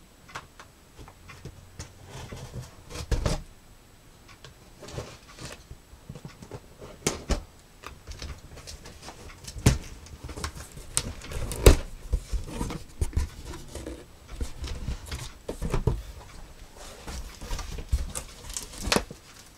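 Cardboard box being cut and opened with a knife: irregular scraping, tapping and sharper knocks of cardboard flaps being worked open. Near the end comes handling of the paper manual and plastic wrap inside the box.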